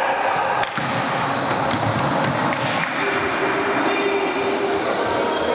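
Indoor futsal play: athletic shoes squeaking on the wooden court and a few sharp ball kicks, over steady background noise in the sports hall.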